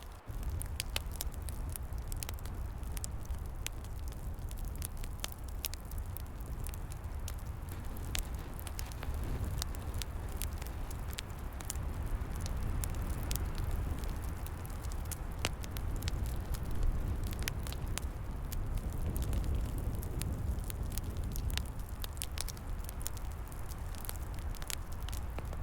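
Wood fire crackling, with frequent sharp irregular pops and snaps, over a steady low rumble.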